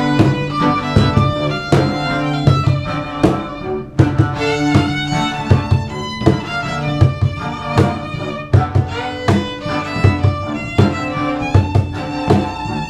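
Instrumental music with a steady beat: sustained melody notes over a strong bass and regular sharp percussive hits, played by a band in a studio sound check.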